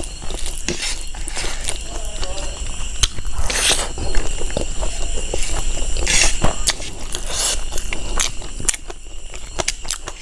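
Close-miked chewing and wet mouth clicks while eating curry and rice by hand, with two louder crunches about three and a half and six seconds in.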